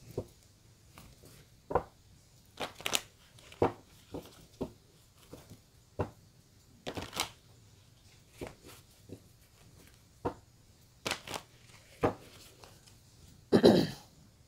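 A deck of cards shuffled by hand: irregular slaps and short riffles, with one longer, louder riffle near the end.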